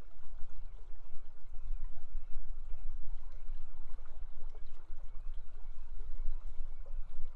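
River water flowing steadily, with wind rumbling low on the outdoor camera microphone.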